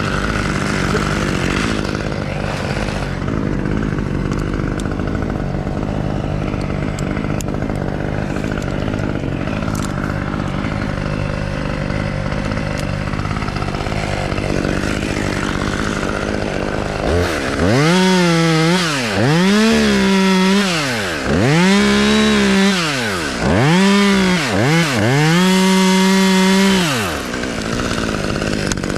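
Chainsaw running steadily, then revved to full throttle in about five surges over the second half, each rising and falling in pitch as it cuts, before dropping back.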